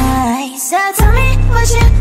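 Background pop song with singing over a heavy bass line; the bass drops out briefly about a third of a second in and comes back about a second in.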